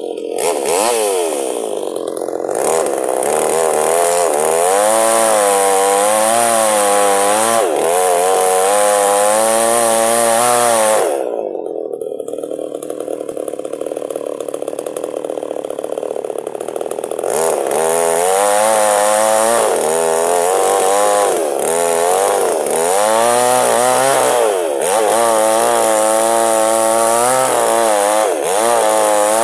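Chainsaw cutting into a log lengthwise, its engine pitch wavering up and down as the chain loads and frees in the wood. About eleven seconds in it eases off and runs steadier for several seconds, then goes back to cutting.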